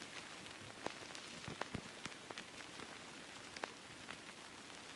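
Faint, steady hiss with scattered, irregular crackles and pops.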